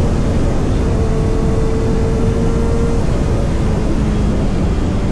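Kawasaki ZX-6R inline-four sport-bike engine running at a fairly steady pitch, under a loud rushing, rumbling noise.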